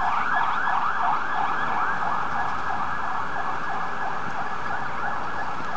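Fire truck siren sounding a fast up-and-down yelp, a few sweeps a second, easing slightly as the truck drives away.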